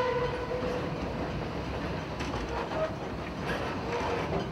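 Narrow-gauge steam train running, heard from aboard: a steady rumble with a few faint clicks of wheels over the rails. The locomotive's steam whistle ends about half a second in.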